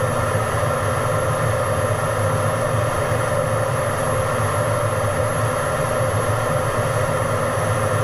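Fighter jet engine running steadily: a constant low rumble under a high, even turbine whine.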